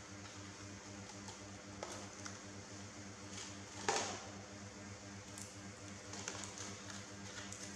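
A plastic cup full of popcorn tipping over onto a tile floor with a sharp knock about four seconds in, the loudest sound. Light clicks and crackles of popcorn and plastic being handled come before and after, over a steady low hum.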